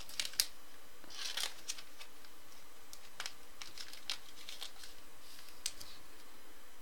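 Trading cards and plastic or foil packaging being handled: a scattered series of short crinkles and rustles.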